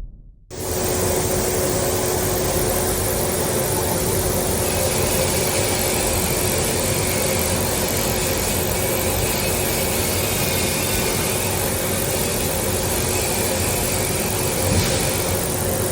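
Steady mechanical noise with a constant low hum, typical of industrial machinery running in a workshop.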